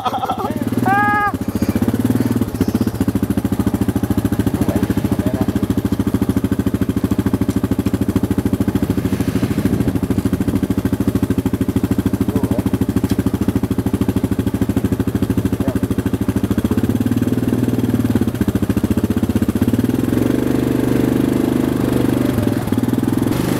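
ATV engines running on a muddy dirt trail: a steady, loud engine drone with rapid firing pulses. The note grows stronger in the last several seconds as the red sport quad comes up close.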